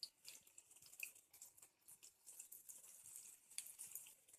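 Faint, sparse crackling of okra deep-frying in hot oil.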